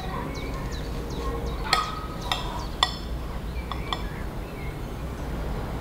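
A utensil clinking against a dish: four sharp, ringing clinks, the first three about half a second apart and a fainter one about four seconds in.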